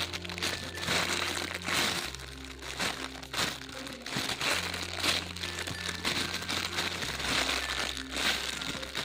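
Background music with steady low chords that change every couple of seconds, over crinkling and crackling handling noise from a foam squishy toy being squeezed.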